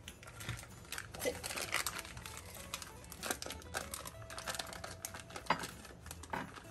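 Foil wrapper being peeled and crinkled off a block of cream cheese, irregular crackling and rustling as the soft cheese sticks to the foil and is worked free.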